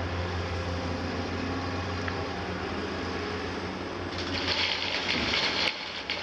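Diesel engines of a CAT 345C and a Liebherr R 946 excavator running at a steady hum. About four seconds in, a loud rushing hiss joins in as loose sand pours from an excavator bucket, breaking off briefly near the end.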